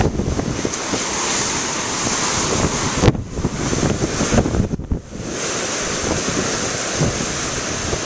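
Heavy ocean surf breaking and washing over rocks, with strong wind buffeting the microphone. The wind noise dips briefly about three and five seconds in.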